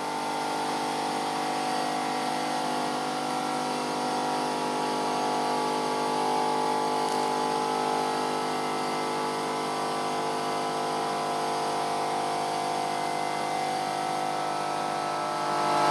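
A steady electric machine hum made of several unchanging tones over a light hiss, running evenly throughout.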